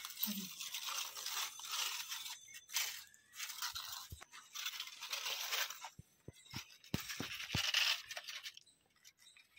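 Aluminium foil crinkling and rustling as it is peeled open by hand from a foil-roasted chicken, with several short dull knocks, mostly in the second half.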